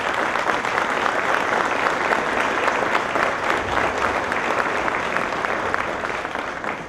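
A crowd applauding, dense steady clapping that tapers off near the end.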